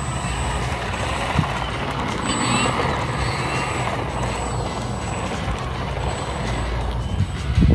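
Electric RC plane's brushless 3536 1000kv motor spinning an 11x6 propeller at low throttle while the plane taxis on asphalt, giving a steady motor-and-prop sound. There is a short low thump near the end.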